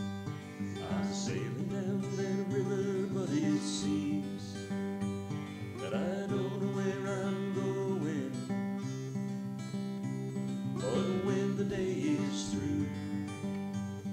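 Acoustic guitar music with a voice singing over it.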